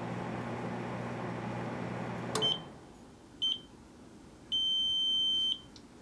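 Microwave oven running with a steady low hum that cuts off about two seconds in as the oven stops. Three high keypad beeps follow: two short ones about a second apart, then one long beep of about a second.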